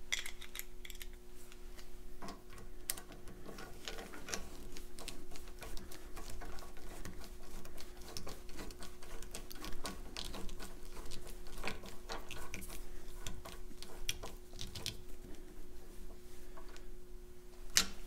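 Sheet metal screw being turned by hand through a slide-hammer cap into a padlock core: a run of small, irregular metallic clicks and scrapes, over a steady low hum.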